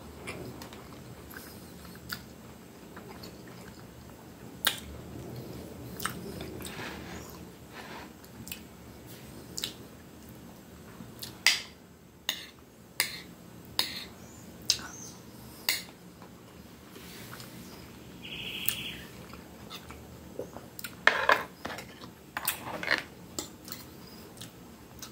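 Chewing, with metal cutlery clinking and scraping against a plate in sharp clicks, ending in a quick run of knife-and-fork clicks as food is cut.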